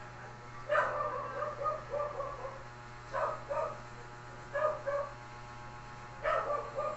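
A dog yipping and whimpering in four runs of short, high notes, one run after another, over a steady low hum.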